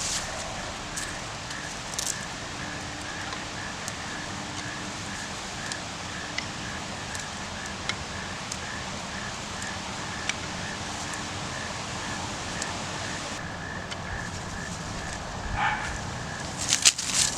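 Outdoor ambience with a steady, regular chirping at one pitch, about two to three chirps a second, over a background hiss. There are scattered light clicks, and louder rustling and knocks near the end.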